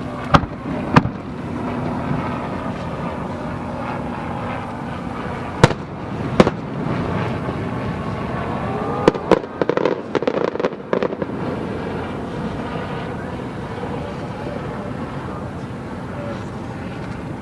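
Aerial fireworks shells bursting: two sharp bangs about a second apart just after the start, two more around six seconds in, then a rapid run of pops and crackles between about nine and eleven seconds.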